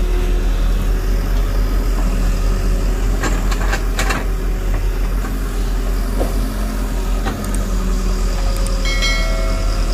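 JCB JS140 tracked excavator's diesel engine running steadily under load while the bucket digs into soil and roots. A few sharp cracks and clatters come between about three and four seconds in, and a brief high squeal near the end.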